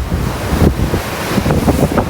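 Storm-driven waves surging and washing against a breakwater, a wide rushing hiss over a low rumble, with gusty wind buffeting the microphone.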